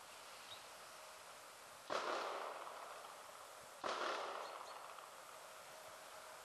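Two sharp bangs about two seconds apart, each echoing away over about a second, over a faint steady hiss.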